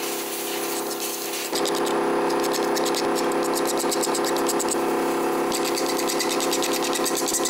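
A steady machine hum, with fast, even scratchy ticks above it. It jumps in abruptly about a second and a half in.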